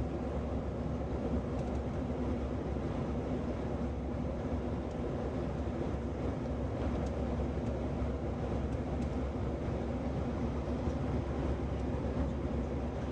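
Steady drone of an Airbus A319's jet engines and rushing air heard inside the passenger cabin during the climb after takeoff, with a low steady tone running through it.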